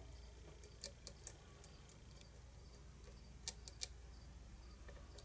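Faint metallic clicks of a lock pick working the pin stack inside a pin-tumbler challenge lock, in two small groups of three: about a second in and again around three and a half seconds.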